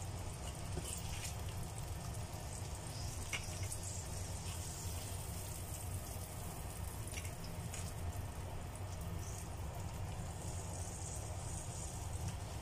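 Shrimp frying in oil in a pan, a soft steady sizzle with a few faint clicks, over a steady low hum.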